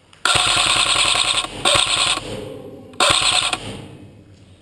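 Airsoft rifle firing in full-auto: three bursts of rapid shots, a long one of about a second followed by two short ones.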